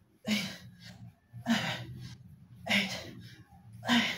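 A man breathing out hard through his mouth in time with his crunches: four sharp, noisy breaths, each with a brief grunt, evenly spaced about one and a quarter seconds apart.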